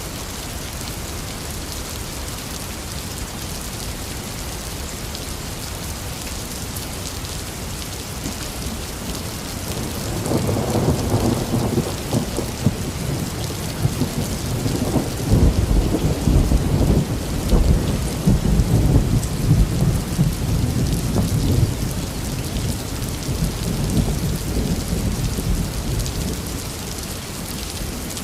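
Intense rain falling steadily, with a long rolling peal of thunder. The thunder builds about ten seconds in, is loudest around the middle, and fades away over the last few seconds.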